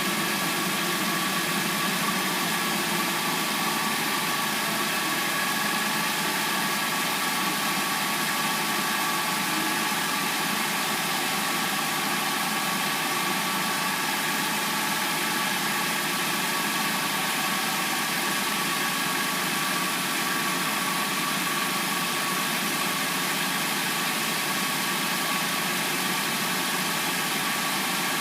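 Hyundai Sonata replacement engine idling steadily while it warms up after a cold start.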